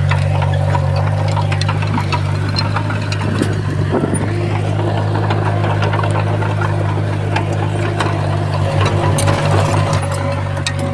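Diesel engine of a heavy earthmoving machine running steadily with a low hum, with scattered light clanks and knocks from the machine working.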